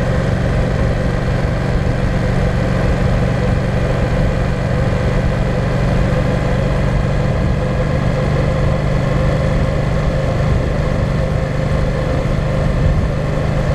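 Yamaha Tracer 700's parallel-twin engine running at a steady cruise, pitch holding level, mixed with wind and road noise on a bike-mounted camera microphone.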